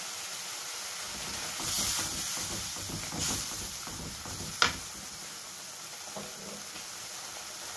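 Spice paste sizzling in a frying pan while a wooden spatula stirs and scrapes through it, with scraping swells about two and three seconds in. One sharp knock comes a little past halfway.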